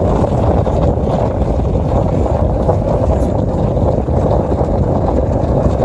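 Steady rumble of a moving car heard from inside the cabin, road and wind noise with no breaks.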